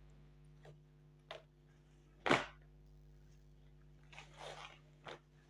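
Plastic wrapping and folded lawn fabric being handled while a suit is unpacked: a few short crinkles and rustles, the loudest about two seconds in and a longer one past the four-second mark, over a faint steady hum.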